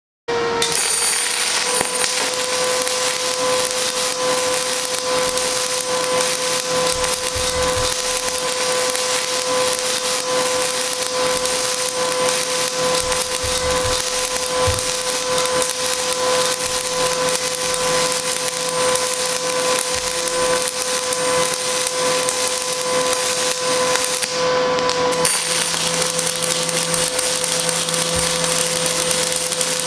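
Pulse stick welding arc crackling and hissing continuously as electrodes are run on steel plate, the welder switching between welding and a lower background current at a few pulses per second to keep the weld cooler. A steady whine runs under the crackle, and the sound shifts slightly about 25 seconds in.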